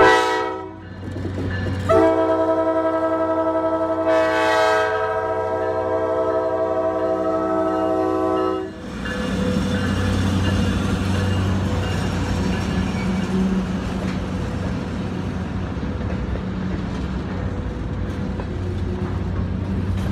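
Diesel freight locomotive's multi-chime air horn giving a short blast and then a long one lasting about seven seconds, at a grade crossing. Then the locomotive's engine running with a steady low drone as it and its freight cars roll slowly past.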